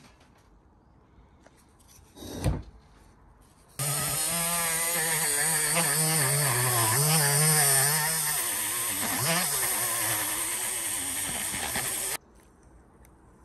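Rotary tool fitted with a brass wire brush spinning against an aluminium piston crown, scrubbing off carbon deposits. Its motor pitch wavers as the brush bears on the metal. It starts suddenly about four seconds in and stops about a second before the end, after a single knock about two seconds in.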